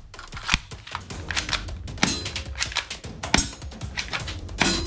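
Clicks and clacks of a plastic toy pistol being handled, its parts snapping and knocking, with a few sharper knocks about half a second in, around the middle and near the end.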